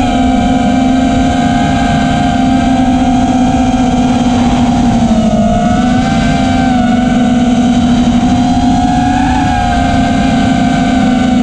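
FPV quadcopter's electric motors and propellers running, close to the mic: a steady buzzing whine whose pitch dips and rises a little with throttle changes, over rushing wind noise.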